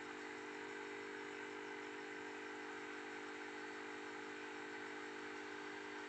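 A steady mechanical hum, even and unchanging, with a constant low drone.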